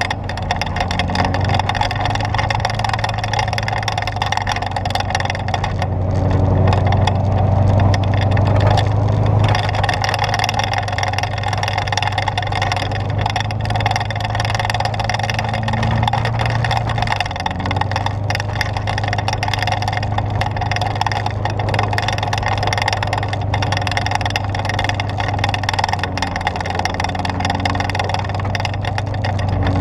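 Vehicle engine running steadily, recorded by a GoPro Hero3+ Silver mounted on the vehicle, with rapid clicking throughout from the camera over a rough ride. The owner suspects the tripod-style mount, or a loose housing latch or door, rather than the camera itself.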